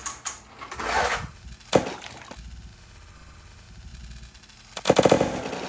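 Die-cast toy monster truck released down a plastic playset drop track: a rush of rattling ending in a sharp clack about two seconds in, then, after a quieter stretch, a fast clattering rattle near the end as the run is shown again.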